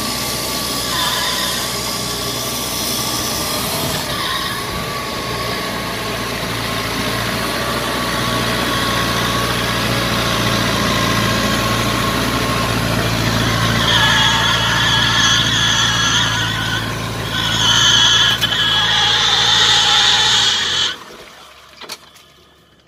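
Paddy tractor with iron cage wheels running steadily as it works through flooded rice-field mud. About two-thirds of the way in, high squealing joins the engine. The sound stops abruptly near the end.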